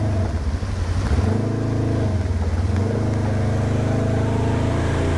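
Polaris side-by-side UTV engine running under load, its revs dropping and picking up again a couple of times before holding steady.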